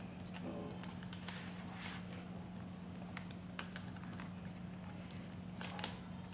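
Scattered light clicks and taps of a laptop hard drive and its plastic and metal parts being handled and fitted into the laptop, over a steady low hum.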